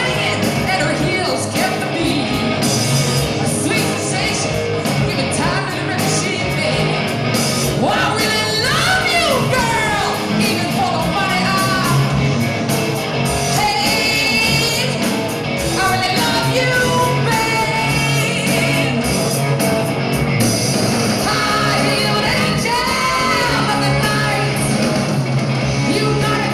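Live rock band playing: a woman sings lead over electric guitar, bass guitar and a full drum kit.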